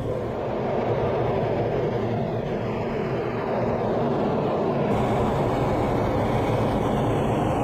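Steady low rumbling roar of jet aircraft engines, with an apparent edit about five seconds in.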